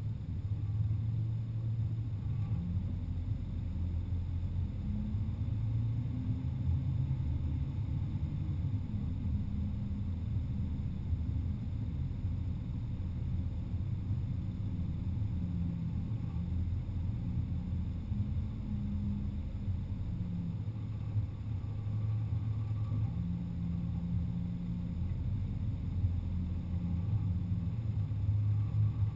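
Car engine running low and steady as the car drives slowly, picked up close from the hood, its pitch rising and falling a little with the throttle.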